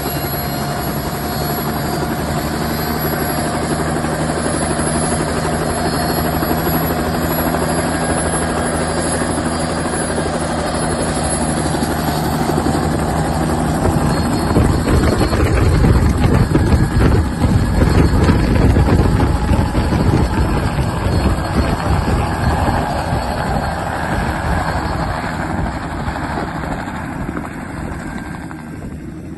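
Bell 206 JetRanger helicopter running on the ground with a steady turbine and rotor sound. About halfway through it gets much louder and deeper as it lifts off, then fades near the end as it flies away.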